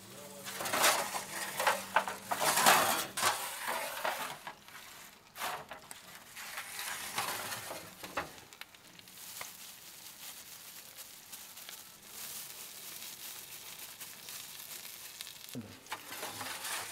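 Fish sizzling as it cooks. Irregular scraping and clattering of cooking utensils fills the first few seconds, then settles into a steady sizzle.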